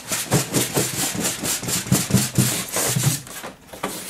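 Foam packing insert rubbing and scraping against the cardboard box as it is worked loose and lifted out, a fast, uneven run of strokes that thins out near the end.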